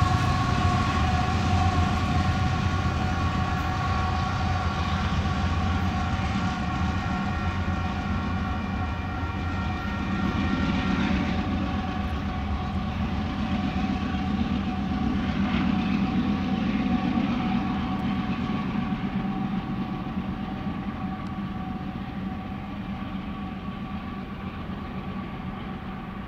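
Loaded Union Pacific coal train's GE diesel locomotives running, a steady low rumble with a constant high whine over it; the sound slowly gets quieter over the second half.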